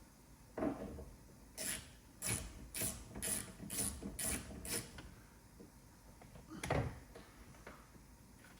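A T25 Torx bit driver ratcheting as a door mirror screw is undone: about seven sharp clicks, roughly two a second. A knock comes before the clicks and another after them.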